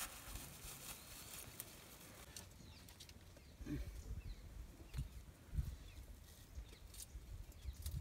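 Quiet outdoor rural ambience, with a few soft knocks about halfway through and near the end.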